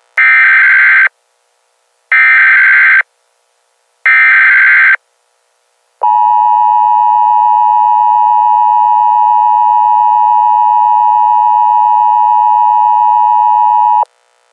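Emergency Alert System SAME header: three bursts of screeching digital data tones, each about a second long and a second apart, followed by the EAS attention tone, a loud steady tone held for about eight seconds that cuts off suddenly.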